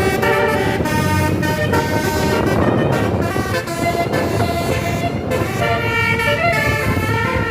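An Indonesian bus's multi-tone "telolet" horn playing a tune of stepped notes, breaking off about two seconds in for a noisy stretch of engine and road sound, then sounding its tune again from about four seconds in.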